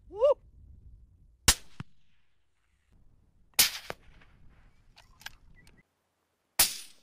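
Three rifle shots, the first about a second and a half in, the next about two seconds later and the last three seconds after that; the later two have a trailing echo. A short rising call is heard just before the first shot.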